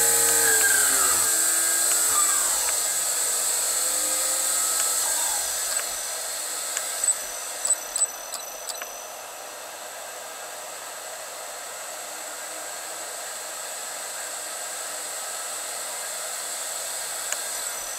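AC motor driven by a VFD inverter, its whine sliding down in pitch over the first couple of seconds as it slows, then a few sharp clicks, then a steadier, quieter hum and hiss with a constant high whine as the motor runs on in reverse.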